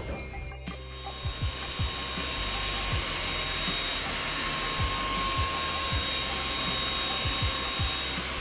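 A detailing tool's steady high hiss, a jet of spray or air, starts about a second in and holds steady with a faint thin whine in it, over background music.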